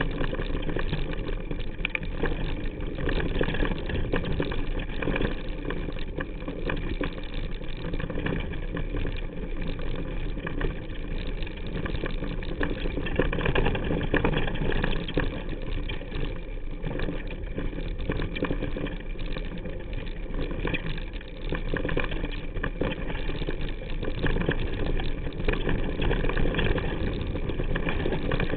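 Mountain bike riding fast down rocky singletrack: continuous rumble of tyres over dirt and stones with constant clattering of the chain and frame on the rough ground.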